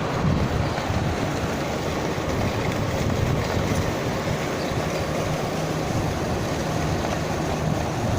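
Steady machinery running: a continuous low rumble with a faint steady hum that sets in about halfway through.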